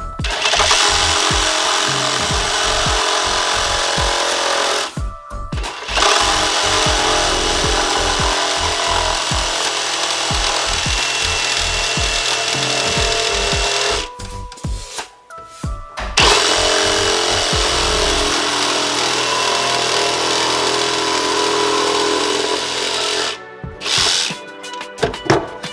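Ryobi 18-volt brushless compact one-handed reciprocating saw cutting wood in long runs, stopping briefly three times between cuts.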